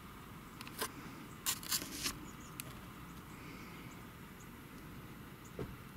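Handheld camera handling noise: a cluster of short clicks and knocks between about one and two seconds in and a dull thump near the end, over a faint steady background rumble.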